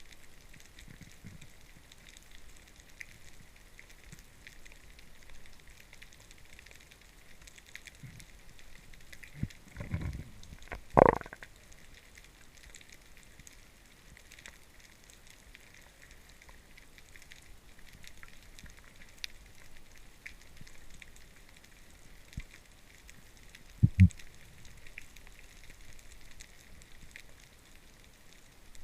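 Underwater crackling and hiss, with low knocks of drumming meagre: a louder sharp knock about a third of the way in and a quick double knock near the end.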